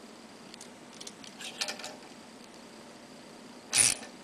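Small metal clicks and taps as the impeller's retaining hardware is fitted onto the ink pump's shaft, followed near the end by one louder, sharper clack.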